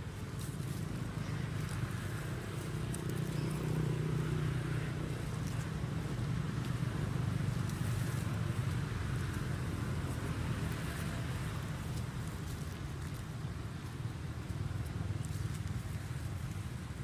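Steady low engine rumble, like a motor vehicle running.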